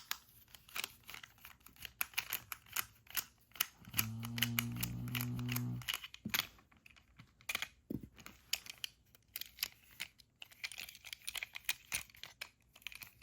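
Small plastic clicks, taps and rattles of a toy train engine being handled, with its battery compartment being opened. About four seconds in there is a low steady hum lasting about two seconds.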